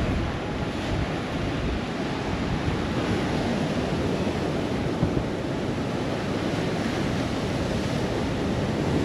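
Ocean surf washing steadily below the pier, with wind rumbling on the microphone.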